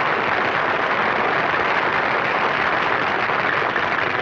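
Studio audience applauding: a dense, steady wash of clapping with no break.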